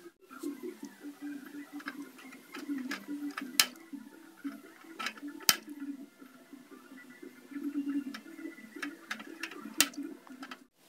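Hand pop-rivet gun being squeezed with repeated small clicks, its rivet mandrels snapping off with three sharp cracks as rivets are set through a hinge into a steel plate.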